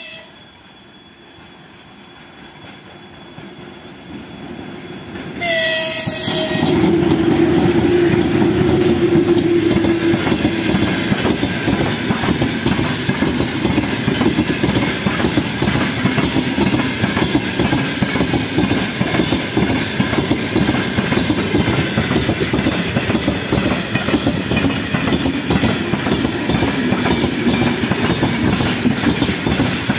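VL15 electric freight locomotive sounding a short horn blast about five seconds in as it comes up, then passing with a loud rumble. The gondola wagons of a long freight train follow, their wheels clattering over the rail joints.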